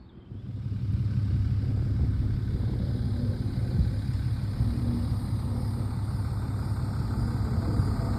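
A heavy machine's engine running steadily with a low drone, swelling in during the first second.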